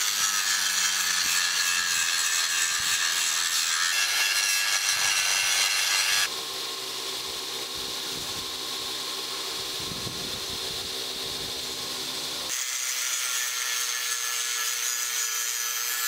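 Angle grinder with an abrasive disc grinding the outer mild-steel canister layer off a forge-welded steel billet held in a vise: a continuous high whine over a grinding hiss. The pitch and loudness shift abruptly three times.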